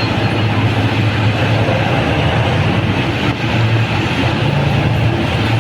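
Large diesel-powered mining machine, a Liebherr R996 hydraulic excavator, running steadily: a deep continuous engine hum under a broad mechanical noise.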